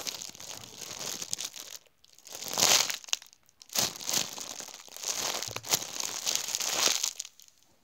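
Clear plastic bag crinkling as the squishy toy sealed inside it is squeezed and handled, in several stretches with short pauses between them.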